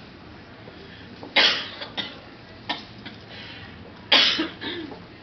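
A person coughing: two loud coughs about three seconds apart, the first about a second and a half in, each followed by a smaller cough.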